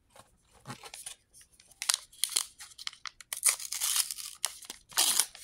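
A Star Wars Unlimited trading-card booster pack's wrapper being torn open and crinkled, in several irregular bursts that get louder from about two seconds in.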